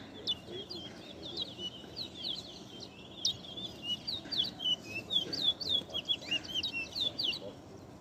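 Caged towa-towa (large-billed seed finches) singing: a fast, almost unbroken run of clear whistled and chirped notes that swoop up and down. The bird is singing the songs a judge counts in a song contest.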